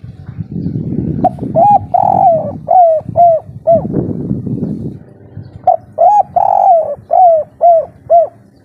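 Spotted dove cooing in two phrases, each a run of about six short arched coos, the first starting about a second in and the second just past halfway. A low rumbling noise lies under the first phrase.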